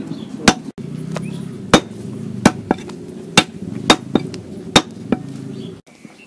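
Cleaver chopping raw lamb meat on a wooden log chopping block: sharp chops at irregular intervals, roughly one a second, over a steady low background rumble. Near the end the chopping stops and it goes quieter.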